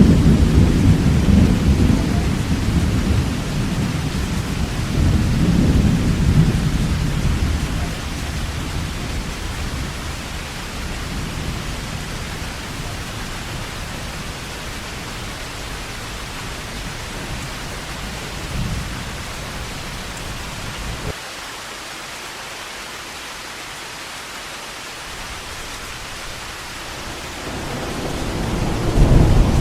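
Heavy rain falling steadily in a thunderstorm, with rolling thunder. A loud rumble breaks in at the start, swells again about five seconds in and slowly dies away. A low rumble cuts off suddenly about two-thirds through, and another thunder rumble builds up near the end.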